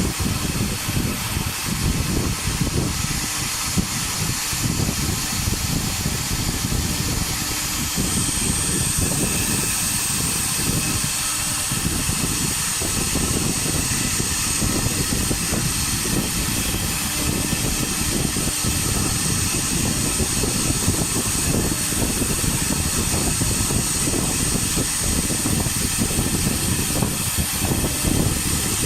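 Air-cooled spindle CNC router carving MDF: a continuous rough machining noise with hiss. About eight seconds in, a steady high whine joins and holds.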